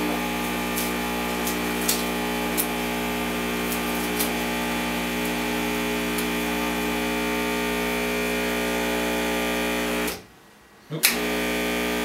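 Vibration pump of a La Nuova Era Cuadra E61 heat-exchanger espresso machine running with a steady buzz as it fills the boiler on first power-up, with a few light clicks over it. The buzz cuts out for about a second near the end and comes back with a click.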